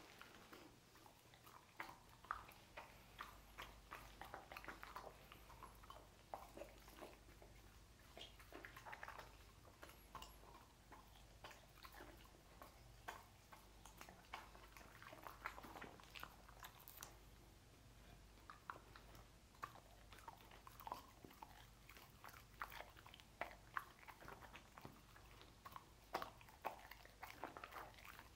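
A dog chewing sausages: soft, wet smacks and clicks of jaws and tongue in irregular runs with short pauses between.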